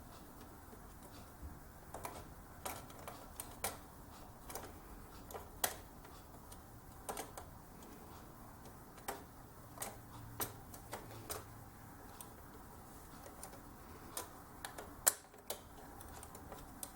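Scattered light clicks and taps from handling a motherboard CPU socket: the retention lever and load plate being opened and the plastic socket cover worked loose. The clicks come singly and at uneven intervals, a little more often in the second half.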